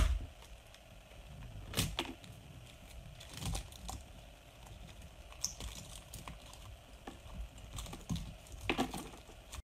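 A painted squishy ball being squeezed in the hand, its dried acrylic paint coat cracking and peeling: scattered faint crackles and clicks, with a few louder snaps here and there.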